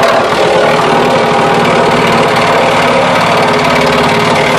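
Reciprocating saw running steadily at full speed, its blade cutting into a subwoofer enclosure.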